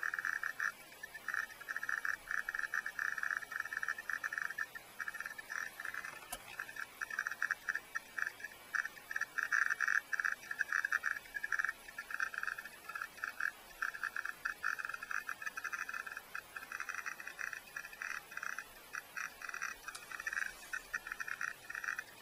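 RBGT-62 Geiger counter clicking fast and irregularly through its audio output, the clicks running together into a tinny crackle with brief gaps. It is counting radioactive contamination in dust wiped from a CRT TV, at a rate above background.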